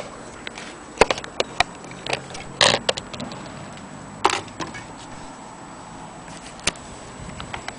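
Irregular clicks and knocks of handling as a hand touches and shifts a brass clock movement lying on its dial: about half a dozen sharp clicks with no steady rhythm, and a short rattling cluster between two and three seconds in.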